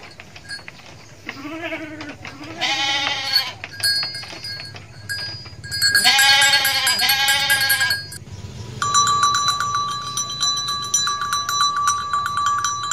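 Sheep bleating: two short low bleats, then a loud quavering bleat and, about six seconds in, a longer loud quavering bleat. For the last four seconds a steady, rapidly pulsing high ringing tone runs on its own.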